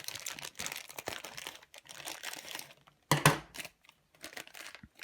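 Crinkling and light tearing of the small plastic wrapper around a Kinder Surprise egg toy as it is handled and opened, with one sharper, louder knock a little past halfway.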